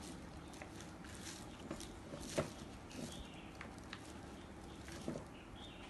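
Scattered light clicks and knocks of the drill's parts and accessories being handled, with one sharper click about two and a half seconds in and another near the end.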